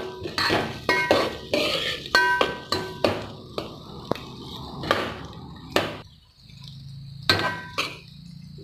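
Metal ladle knocking and scraping against a metal cooking pot while stirring sliced onions in oil, the pot ringing briefly after the sharper knocks. The knocks come quickly and irregularly, then thin out after about six seconds to a couple of clinks.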